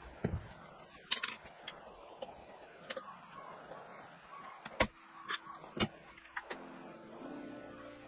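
Hands handling 3D-printed plastic template pieces on a wooden jig: a few separate light clicks and knocks, about 1, 3, 5 and 6 seconds in.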